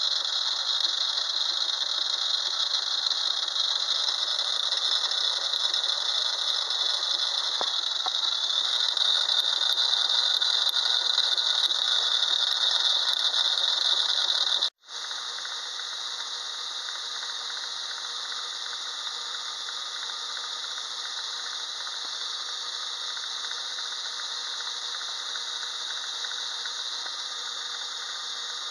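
An electric drill driving a small metal lathe spins a mounted PTO yoke, giving a steady whirring hiss with a rattle. About halfway through it breaks off for an instant and carries on quieter.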